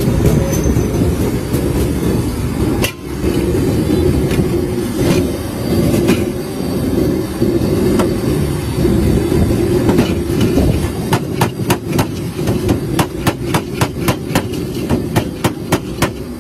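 Steady low rumble with sharp metallic clicks and clinks, coming in a quick regular run of about three a second in the second half, as fries are tossed by hand in a steel bowl.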